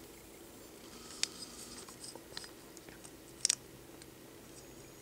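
A few faint clicks of a small die-cast metal toy truck being handled and turned over in the hand, with a sharper double click about three and a half seconds in.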